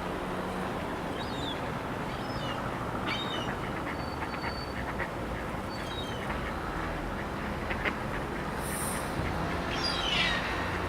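Waterbirds calling: short, high, falling calls now and then over a steady low background rumble, with a louder falling call near the end.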